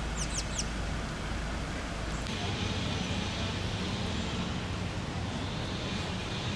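Steady outdoor rumble like distant traffic or an engine. A few quick high chirps come near the start, and about two seconds in the background changes abruptly, taking on a low steady hum.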